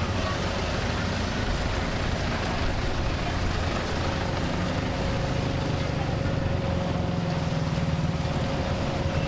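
Steady engine drone with a low rumble and a constant mid-pitched whine running through it.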